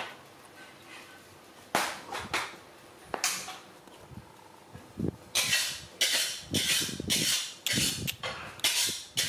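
A baby macaque handling a wooden block and a stick on a concrete floor: scattered short scraping and knocking noises, coming faster and closer together in the second half.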